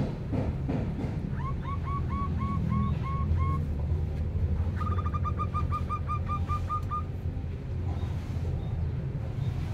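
A bird calling in two quick runs of short repeated chirps, about eight and then about a dozen slightly higher and faster ones, over a steady low rumble. A few light clicks near the start.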